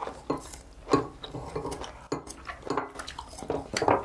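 Cutlery clinking and knocking against dishes while boiled octopus is cut into small pieces with a knife: a string of short, irregular clicks and soft knocks.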